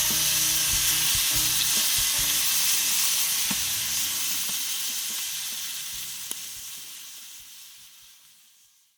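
Firewood burning hot in a fire pit, crackling and hissing with an occasional pop. It fades out steadily over the last four seconds or so.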